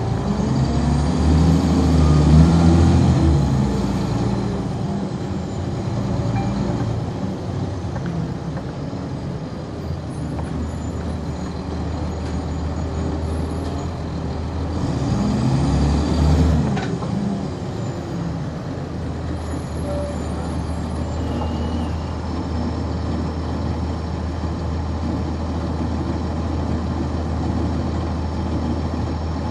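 A 1999 NovaBus RTS transit bus's Cummins ISC diesel engine heard from on board. It revs up and falls back twice, near the start and about halfway through, with a high whine climbing and falling along with it. It then settles to a steady low drone.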